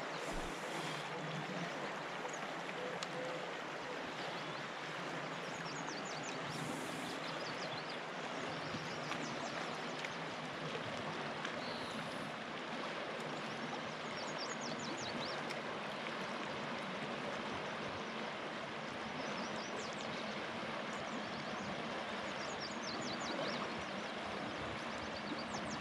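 Steady rushing of a shallow, fast-flowing river's current over a riffle: an even water noise that holds without a break.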